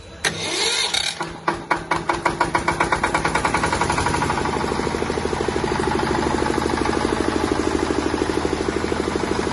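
Diesel engine of a Bajaj 12.5 kVA generator set starting up. It fires in uneven knocks that quicken over the first couple of seconds, then settles into steady, even running with a regular diesel knock.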